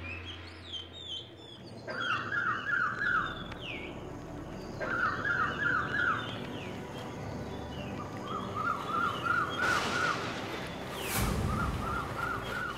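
Birds chirping in repeated short phrases of four or five quick notes, a sound-effect bed of birdsong. Two brief rushing sweeps come about ten and eleven seconds in.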